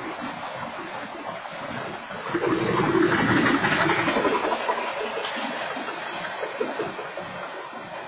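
Freight train cars rolling past on the track: a steady rush of wheel and rail noise, swelling louder from about two seconds in to about five seconds in, then easing, as picked up by a security camera's microphone.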